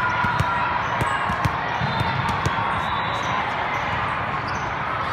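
Volleyball match ambience: sharp thumps of balls being hit and bouncing at irregular intervals, over a steady murmur of crowd voices.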